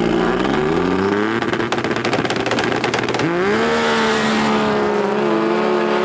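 Racing snowmobile engine on a drag pass. Its pitch climbs, breaks into a rough, rapid crackle, then jumps sharply about three seconds in and holds at a steady high pitch.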